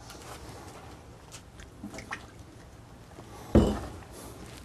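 A few faint clicks, then a single sharp thump a little past halfway.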